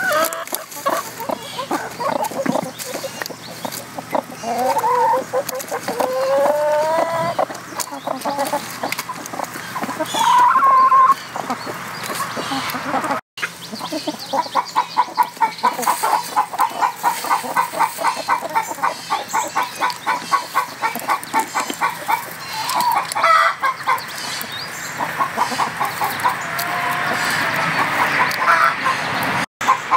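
A flock of hens clucking as they feed. The first half has drawn-out, wavering calls, and the second half a fast, steady run of short clucks, about four or five a second.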